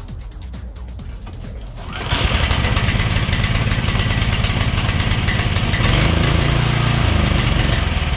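Small gasoline engine of a chipper-shredder starting about two seconds in and running loudly with a rapid, rough beat for several seconds, over background techno music.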